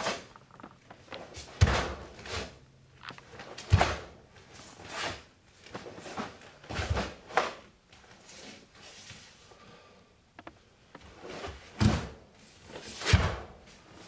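Bare feet thudding and stamping on a wooden floor and a cotton karate uniform swishing with each move of a kata: a run of sharp thuds a second or two apart, the strongest about two seconds in and two more near the end.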